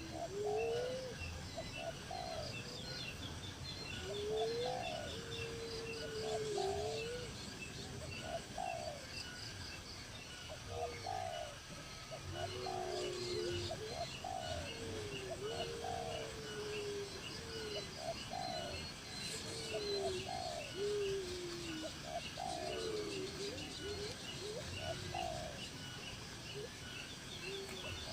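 Birds calling: low cooing calls that glide up and down, repeated every second or so, over a steady chatter of high chirps from smaller birds.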